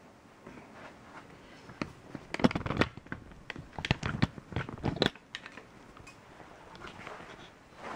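Camera handling noise: a cluster of clicks, knocks and rustles between about two and five seconds in as the camera is picked up and moved for a close-up.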